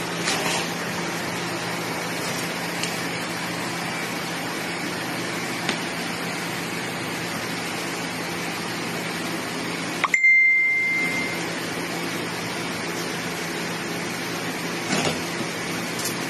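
Cardboard box and plastic wrapping being handled, a few faint rustles and clicks over a steady background hum. About ten seconds in, a sharp click and a single high beep lasting about a second.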